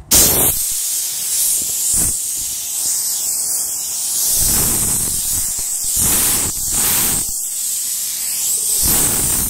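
Compressed air hissing steadily from a blow gun, blowing sawdust off a freshly sanded wooden bench top. It starts abruptly and swells and eases several times as the nozzle moves.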